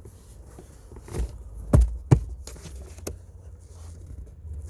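Cabin air filter cover of a 2005 Hyundai Santa Fe being slid up into place behind the glove box by hand: a few knocks and clicks of plastic, the sharpest two close together about two seconds in.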